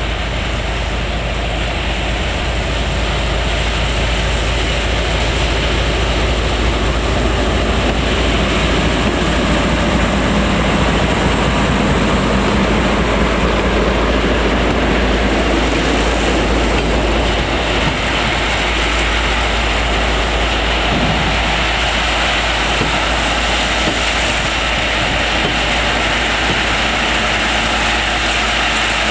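Ballast hopper work train running, with steady engine and wagon noise.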